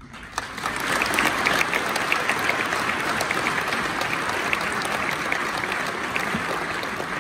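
Audience applauding, the clapping swelling within the first second, holding steady, and starting to die away near the end.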